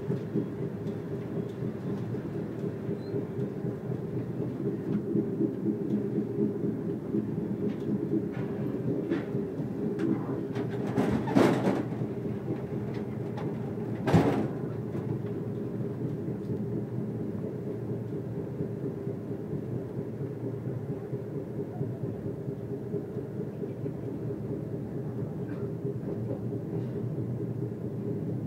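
Passenger train running at speed, heard from inside the carriage: a steady rumble of wheels on the track with a constant low hum, and two short, louder clatters about eleven and fourteen seconds in.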